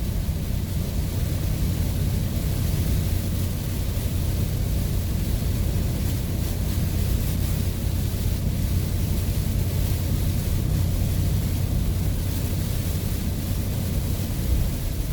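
Steady cabin noise of a Ford van driving on a wet highway in heavy rain: a low drone of engine and tyres under a constant hiss of rain and spray.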